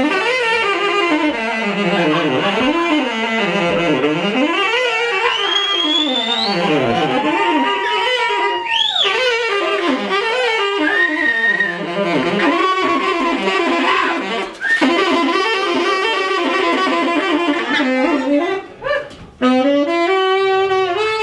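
Tenor saxophone played solo, bending and swooping between notes, with a glide up to a high squeal about nine seconds in. Near the end it settles on long held notes.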